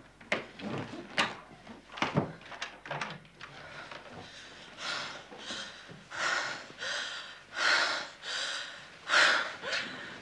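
A few knocks at the start, then a woman panting heavily through her open mouth: a string of quick, gasping breaths that grow louder towards the end, the breathing of someone frightened and out of breath.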